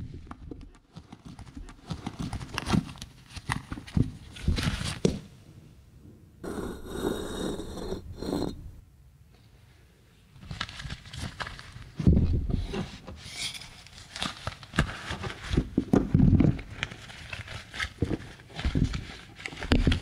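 Leather lace-up boots being pulled on and laced: irregular rustling, scraping and clicking of leather and laces, with a few heavier thumps of the boots against the floor in the second half.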